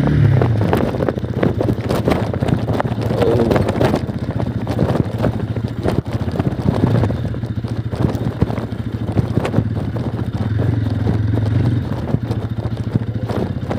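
Motorcycle engine running at low speed over a rough, stony dirt road, with many small knocks and rattles throughout and wind on the microphone.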